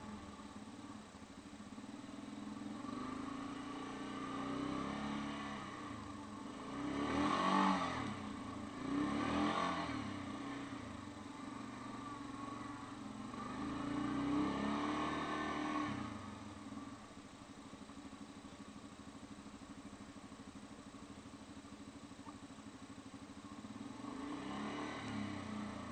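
Yamaha Grizzly 550 ATV's single-cylinder engine running while the quad climbs over rough ground. It revs up and falls back in surges: twice close together about a third of the way in, again around the middle, and once more near the end. In between it runs lower and steadier.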